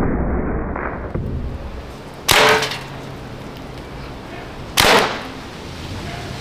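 Two shots from an Umarex T4E HDR50 CO2 revolver firing .50 calibre rubber balls, about two and a half seconds apart, each a sharp crack with a brief ring after it.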